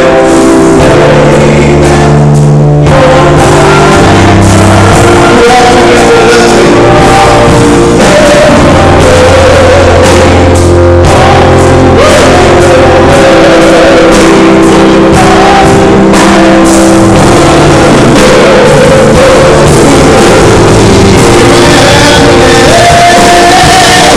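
Live gospel worship song, loud: a small group of men singing into microphones over keyboard chords and held bass notes.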